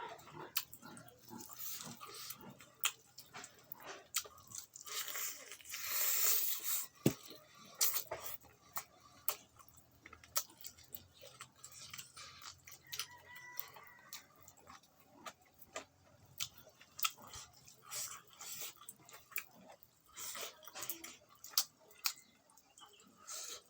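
Close-up mouth sounds of eating fatty pork: wet chewing and lip-smacking, with many short clicks and a few longer wet bursts.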